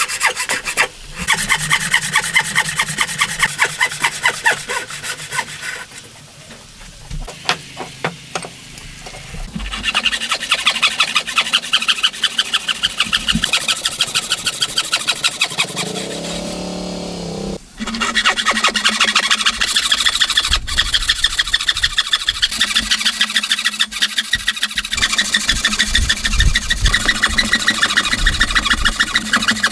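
Wood being worked by hand with rapid back-and-forth scraping strokes, heard in several short stretches. A brief low hum comes in about two-thirds of the way through.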